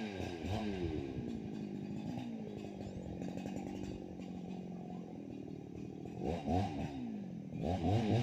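Two-stroke chainsaw engine coming down off high revs to a steady idle, revved briefly about six seconds in, then revved up again near the end.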